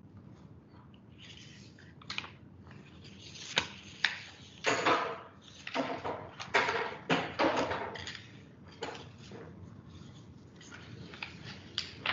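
Irregular rustling and clattering handling noises, a string of short knocks and rubs that are busiest in the middle, picked up through a video-call microphone.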